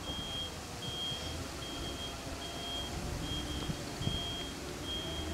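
Level-crossing warning signal beeping: a high electronic tone sounding about once every 0.8 seconds while the half barriers are down, warning that a train is due.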